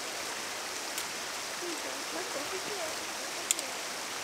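Steady rushing of a stream, with a light click about a second in and a sharper one about three and a half seconds in.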